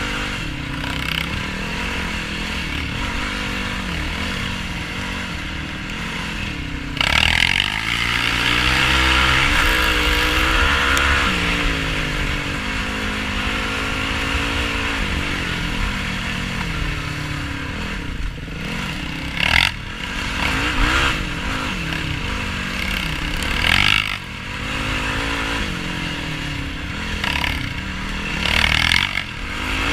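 Single-cylinder four-stroke engine of a Yamaha YFZ450R sport quad running off-road, its revs rising and falling continuously as the rider works the throttle. Several short, loud bursts of rushing noise break in over the engine.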